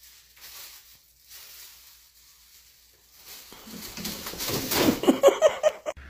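Thin plastic shopping bag rustling as a cat paws at it and pulls it, soft at first, then loud crinkling in the second half.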